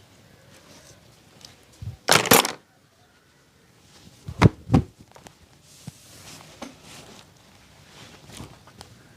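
Hand sounds of a barber's head-and-neck massage: a short noisy burst about two seconds in, then two sharp smacks or cracks about a third of a second apart, with soft rubbing between.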